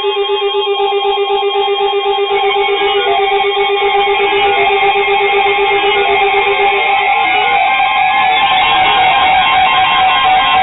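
Weather alert radios sounding their electronic alarms together: fast, repeating beeping tones at several pitches over a steady high tone. This signals an incoming severe thunderstorm warning.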